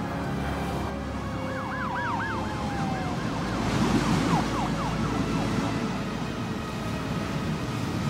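Siren yelping, its pitch swinging fast up and down about six times a second, in two short spells over a steady low rumble.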